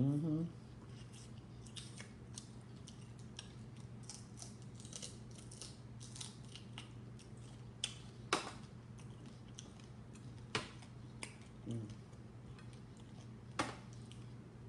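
Close-up eating sounds: chewing with wet mouth clicks and lip smacks scattered throughout, a few louder sharp smacks, and a short murmur near the start and again about two-thirds through, over a steady low hum.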